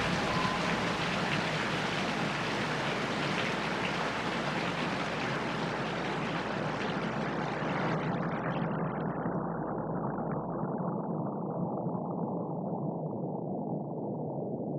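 Steady rushing of a waterfall cascading over rocks. From about eight seconds in it grows gradually duller and more muffled.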